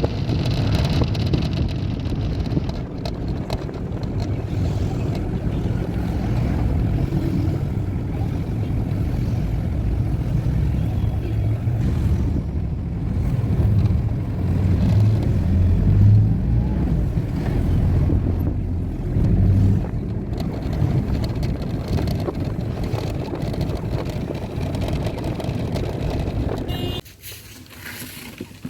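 Steady low rumble of a moving vehicle with wind buffeting the microphone, cutting off abruptly near the end.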